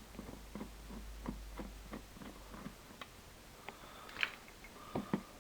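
Phillips screwdriver backing out the screws of a Vespa GTS scooter's plastic battery cover: faint, irregular small clicks and ticks of the bit and screws, with a few sharper clicks near the end.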